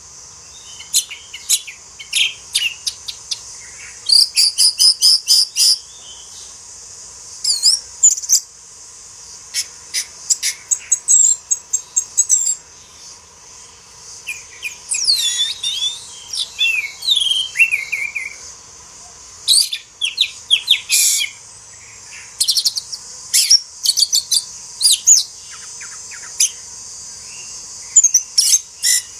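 Orange-headed thrush in full song: a long run of varied, loud whistled phrases, sharp clipped notes and quick trills, with fast runs of repeated notes, over a steady high hiss.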